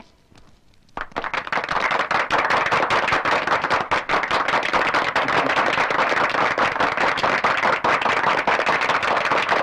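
A long string of firecrackers going off in rapid, continuous cracks, starting about a second in.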